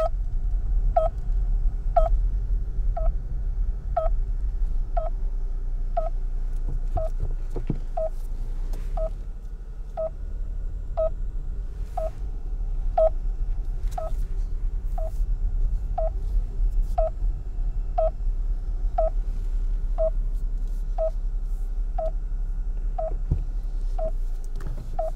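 Radio-frequency tracking receiver beeping steadily, one short beep of the same pitch about every second, as it picks up a hidden MTrack theft tracker's signal. The signal is strong because the receiver is close to the tracker.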